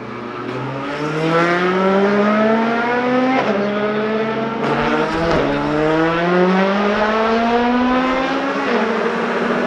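Race car engine accelerating hard up through the gears. Its pitch climbs steadily and drops back at each of about three upshifts.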